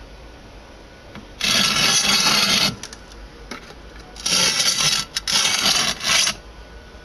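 Loud rasping scrapes: one lasting about a second starting about a second and a half in, then two more from about four seconds to just past six.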